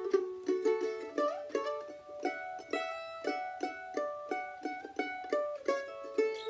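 F-style mandolin picked solo, a run of single notes and double-stops at about three notes a second, playing a harmony line to a tune.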